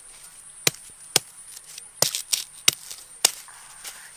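A large knife chopping into a fresh bamboo shoot at its base: about seven sharp strikes, irregularly spaced, with several in quick succession in the middle.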